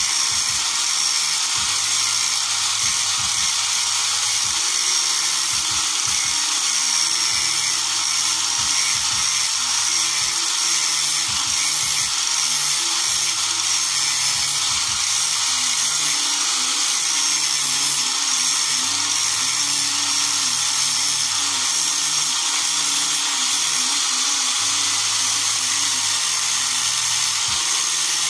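Hand-held electric angle grinder with a sanding disc running steadily against the worn rocker arm faces of a Nissan TD27 diesel, grinding them smooth to restore correct valve clearance. A high-pitched grinding noise holds even throughout.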